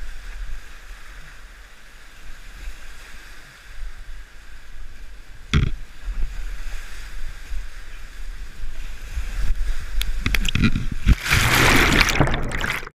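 Whitewater rapids rushing past a kayak, a steady noisy hiss of water with a low rumble on the microphone. A single sharp knock comes about five and a half seconds in, and near the end the water turns into loud churning and splashing as the microphone goes under the water, then the sound cuts off suddenly.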